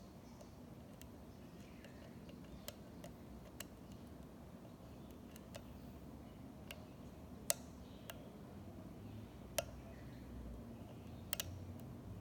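Picking an American 1100 pin-tumbler padlock: faint, scattered metallic clicks from the pick and tension tool against the pins, about ten at irregular intervals, the sharpest about halfway through and a quick double click near the end, over a faint steady background hum.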